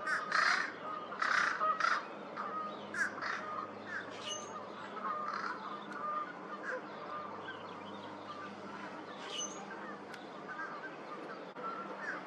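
American crow giving a few short, harsh, nasal calls in the first two seconds, its attempts to sound like a fish crow. After that only faint short notes of other birds carry on in the background.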